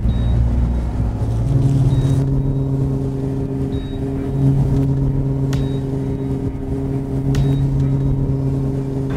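Bass boat's outboard motor running at high speed, a steady drone that rises in pitch about a second and a half in.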